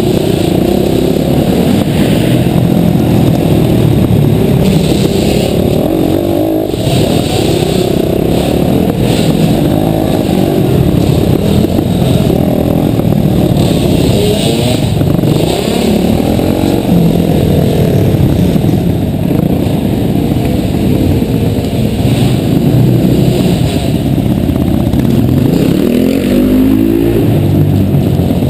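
Mini motocross bike engine heard from on board, its pitch rising and falling again and again as the throttle is opened and closed through the corners and jumps.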